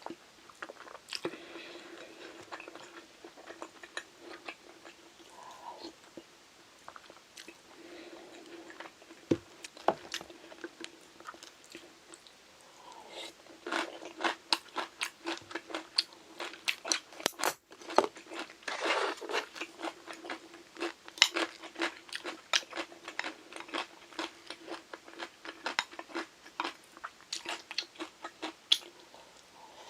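A person chewing crunchy food close to the microphone: many sharp crunches and bites, sparse at first and coming thick and fast from about halfway through, over a faint steady hum.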